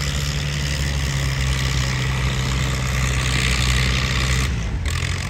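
Farm tractor engine running at a steady speed while hitched to a tractor-pull sled, then dropping in pitch about four and a half seconds in.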